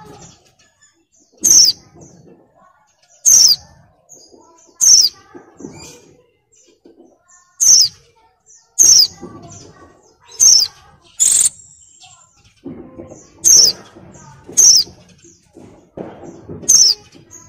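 Female white-eye (pleci) in breeding condition giving short, sharp, high-pitched calls, each dropping in pitch. About ten come in a row, one to two seconds apart. This in-heat female call is used to lure male white-eyes into singing.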